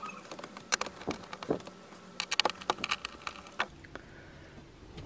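Hand screwdriver turning out a mounting screw from a 12 V switch panel: a run of small, irregular clicks and scrapes that stops about three and a half seconds in.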